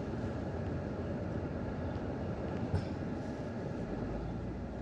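Steady road and engine noise heard inside a minivan's cabin while driving slowly, with a single short click a little past the middle.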